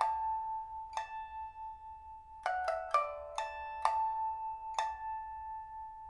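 Pipa with a Burma padauk body, a newly fitted fire-roasted soundboard and new frets, plucked note by note in a slow phrase. The notes ring on long, with a quick run of several plucks about halfway through.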